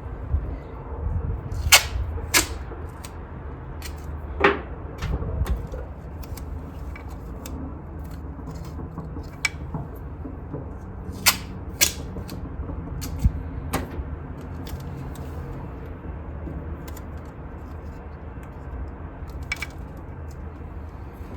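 Scattered sharp clicks and clanks of hand tools and metal engine parts being handled, a dozen or so over the span, over a steady low hum.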